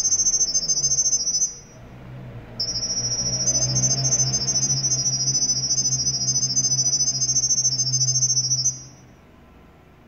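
Smartphone speaker playing a rapid, high-pitched chirping tone sequence: the sound-coded Wi-Fi network name and password, sent to the KW02C doorbell's microphone for setup. The tones break off for about a second, start again and stop near the end, over a low background hum.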